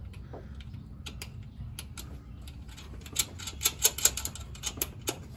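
Light, irregular clicks and taps from a rear coilover and its mounting hardware as it is fitted up into the suspension of an NA Mazda Miata. The clicks come thickest and loudest about three to five seconds in, over a low steady hum.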